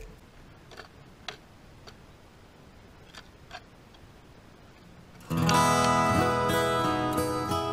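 A quiet stretch with a few faint, scattered clicks. About five seconds in, strummed acoustic guitar music starts and is much louder.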